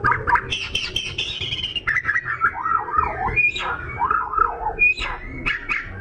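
Oriental magpie-robin singing vigorously: a rapid, unbroken run of varied slurred whistles and harsher notes, with scattered sharp clicks.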